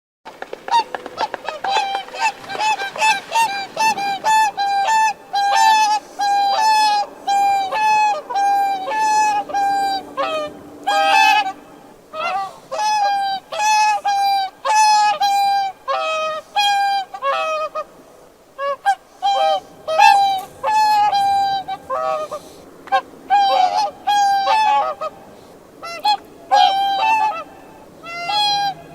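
Swans calling: a rapid string of short, nasal calls, two or three a second, with more than one bird overlapping at slightly different pitches. There is a brief lull a little past the middle.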